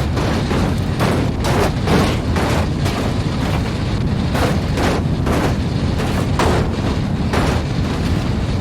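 Fidget spinner spun close to the microphone: a loud, steady low rumble with irregular swishes about once or twice a second.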